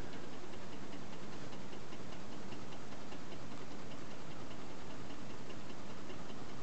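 Homemade tin-can Stirling engine running on a meths burner, its flywheel turning at an easy pace with a light, regular ticking from the mechanism.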